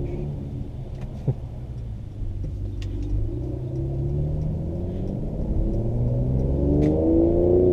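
2017 Mercedes-AMG C43's twin-turbo V6 with performance exhaust, heard from inside the cabin, pulling hard under acceleration. The engine note climbs steadily in pitch from about two seconds in until near the end.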